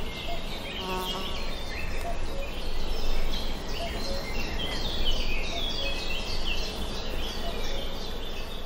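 Honeybees buzzing around a hive entrance, one passing close about a second in, with birds chirping in quick, short falling notes throughout.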